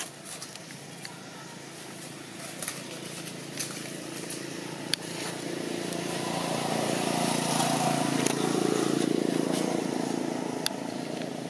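A motor vehicle passing by, its engine rising to a peak about two-thirds of the way through and then fading, over scattered sharp crackles of dry leaves as the monkeys move and handle the fruit.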